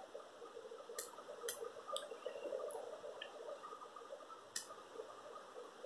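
A few faint, sharp clicks, four spread over several seconds, from fingers working the knob and switch of an electronics circuit kit, over a faint steady hum.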